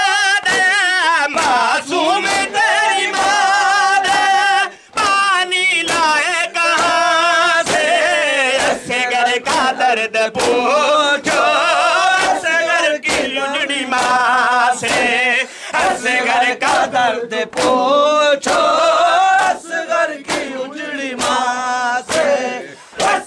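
A group of men singing a Muharram nauha (lament) in long, wavering, drawn-out lines over the steady rhythmic slaps of matam: open hands beating on chests.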